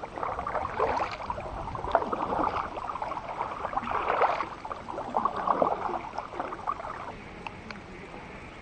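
Kayak paddle strokes in creek water: the blades dip and pull with splashing and dripping, about one stroke a second, fading to a faint steady hiss about seven seconds in.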